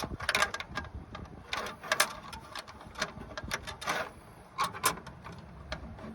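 Pliers and a screwdriver clicking and scraping on the small metal screw and fittings of a bonnet release cable as it is held and tightened, in irregular light taps.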